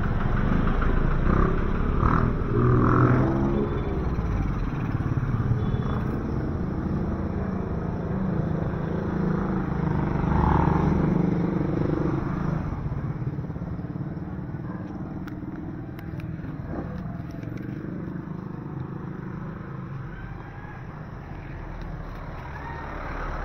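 Motorcycle and vehicle engines passing close by on a narrow street, loudest in the first half and fading to a quieter traffic hum, with a vehicle coming closer near the end.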